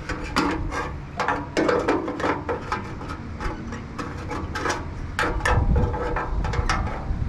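Irregular metallic clicks and knocks as a fuel level sender, with its metal mounting plate, float arm and wires, is worked back out through the sender opening of a Honda Valkyrie fuel tank.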